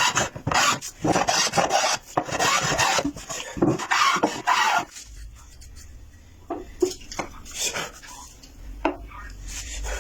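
Wood being rubbed down by hand with an abrasive tool in quick, repeated rough strokes. The strokes stop about halfway through, leaving a few light scrapes and taps.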